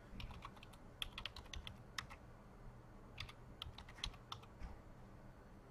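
Computer keyboard being typed on: a faint run of irregular key clicks that stops a little over a second before the end.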